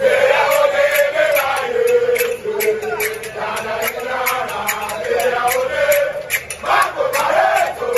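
A crowd of men chanting together in unison, with sharp beats three or four times a second.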